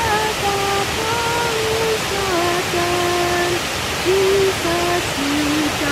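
A woman singing a hymn unaccompanied, a slow line of held notes, over the loud, steady rush of a waterfall.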